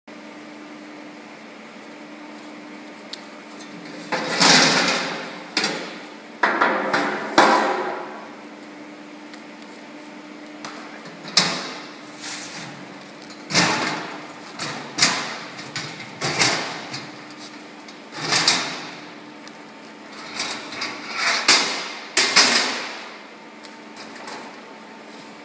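Stainless steel folding table's frame and legs clanking as they are swung open and set in place: a series of a dozen or more metal knocks and rattles with short ringing, starting about four seconds in, over a steady low hum.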